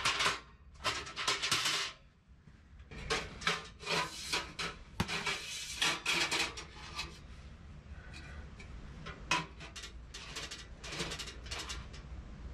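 Metal stovepipe sections of a camp wood stove being handled and pushed together, in a series of short scrapes and rubs with light metallic clatter.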